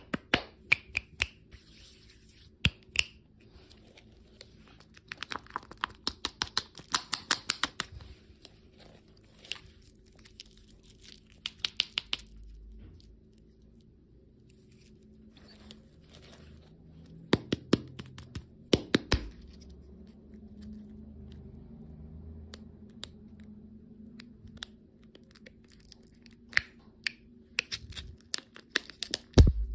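Candy packaging being opened by hand: plastic wrappers crinkling and tearing, with scattered clicks and taps and a few dull thumps.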